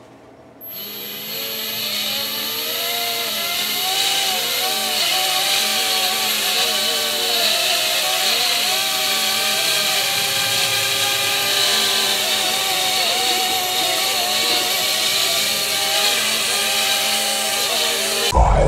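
Small toy quadcopter drone's propeller motors whirring, starting about half a second in, with several motor tones wavering up and down together as it is throttled and lifts off.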